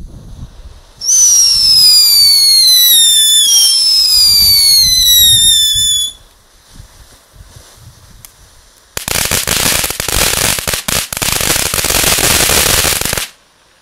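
Funke Mini Cuckoo multi-effect firework fountain burning through its effects. It opens with a loud whistle that slides down in pitch for about five seconds, hisses more quietly for a few seconds, then gives about four seconds of dense crackling that cuts off suddenly near the end.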